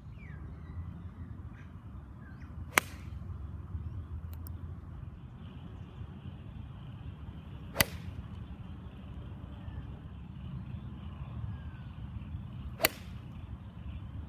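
A golf iron strikes the ball three times, about five seconds apart, each impact a sharp crack over a low steady rumble.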